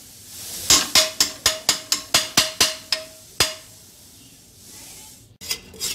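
A metal spoon tapped about a dozen times, roughly four a second, against an aluminium pressure cooker, the pot ringing with a steady tone under the taps, knocking ghee off the spoon into the pan. A few more knocks come near the end.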